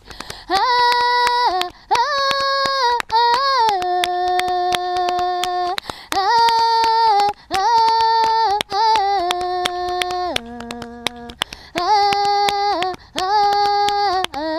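Women singing a batuku song in long held phrases over a steady clapped beat.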